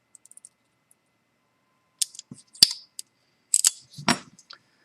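Small metallic clicks and clacks of a U.S. General 5-pin padlock being handled as its plug is put back in working position. A few faint ticks at first, then several sharp clicks and short rattles in the second half.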